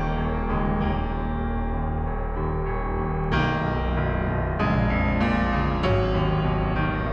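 Background music on piano or keyboard, with new chords struck about once a second in the second half.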